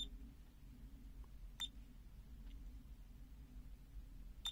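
Three short, faint, high beeps, at the start, about a second and a half in, and at the end: keypress tones from a FNIRSI DP100 bench power supply as its buttons are pressed to step its output voltage down. A faint low hum runs beneath.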